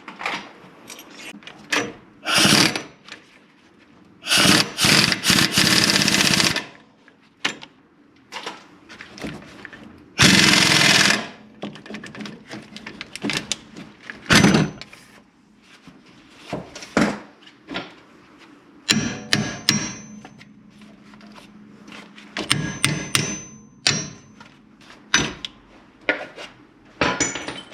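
Metal tools and parts clanking and clicking during work on a sway bar link, with several harsh bursts of noise a second or two long, the longest about four seconds in and about ten seconds in.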